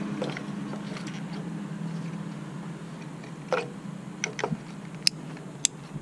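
Sharp plastic clicks and taps as an ignition coil pack and its connector are handled on top of a four-cylinder engine, mostly in the second half, over a steady low hum.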